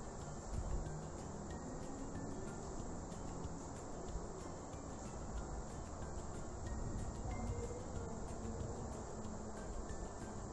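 Steady background noise of a home recording, a faint even hiss with no distinct events.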